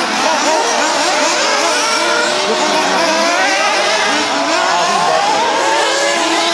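Several 1:8 scale nitro off-road RC buggies racing together, their small two-stroke glow-fuel engines whining and repeatedly rising and falling in pitch as they accelerate and back off around the track.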